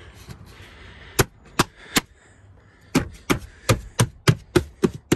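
A hand striking a plastic dashboard end trim panel to snap its clips into place: a series of sharp knocks, three spaced ones, a short pause, then a quicker run of about three a second.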